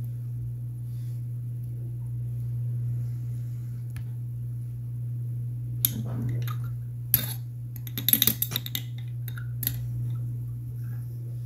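A spoon and dishes clinking a few times, with a quick cluster of sharp clinks just after eight seconds in, over a steady low hum.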